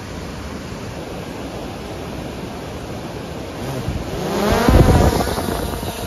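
Small quadcopter drone's propellers spinning up and lifting off: a whine that rises in pitch from about three and a half seconds in, loudest near five seconds, then fading. Under it, the steady rush of a waterfall.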